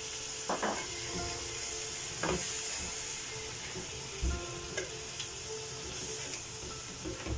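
Tomato and onion masala sizzling in a non-stick pan over a gas flame, just after a small cup of water was poured in. It is stirred with a spatula that knocks against the pan now and then, about five times.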